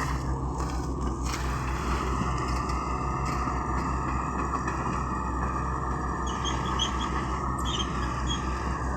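Diesel engine of a JCB earth-moving machine running steadily, with an even low throb.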